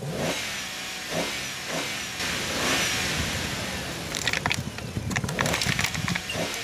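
A car running as its tyre presses slowly into a ball covered in candy-coated chocolates. About four seconds in, a rapid crackle of sharp cracks starts as the candy shells begin to break and pop off under the weight.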